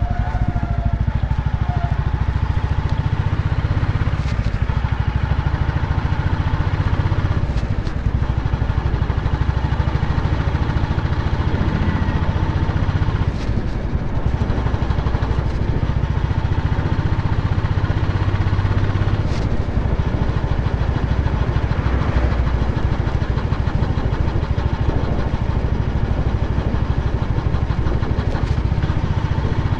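Royal Enfield Bullet's single-cylinder engine running steadily as the motorcycle is ridden along.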